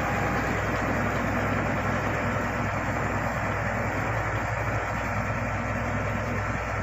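Shantui SD16 bulldozer's diesel engine running steadily.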